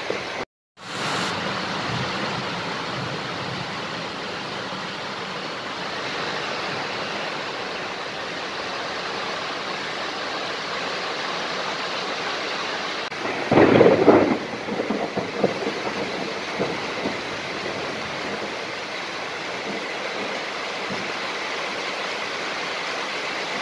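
Heavy rain pouring steadily. About halfway through comes a loud thunderclap that trails off in a few seconds of crackling rumble.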